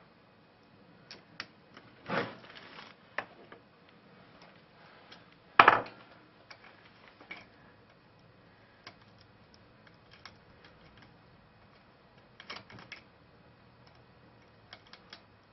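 Scattered metal clicks and clinks of hand tools, a socket and small nuts being handled and set in place. There is a louder clatter about two seconds in and a sharp knock near six seconds.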